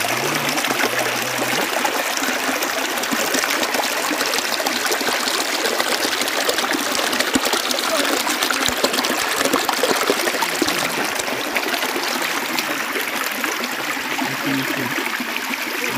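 Shallow rocky river flowing and splashing over stones close to the microphone, a steady, even wash of water noise.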